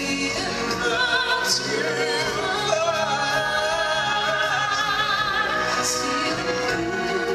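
A woman singing a long, wavering melody into a microphone over an instrumental backing, amplified through the show's sound system.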